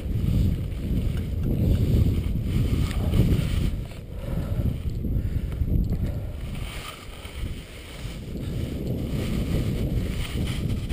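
Wind buffeting the camera microphone: a gusty low rumble that eases for a moment about four seconds in and again around seven to eight seconds in.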